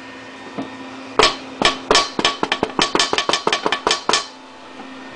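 A fist knocking rapidly on a laptop screen: about a dozen sharp knocks in quick succession, starting about a second in and lasting some three seconds, over a steady hum.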